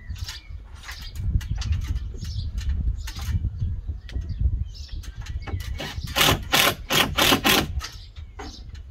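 Cordless drill driver running in short bursts as it drives screws into cement board: five quick bursts about six to seven and a half seconds in, with clicks and knocks between.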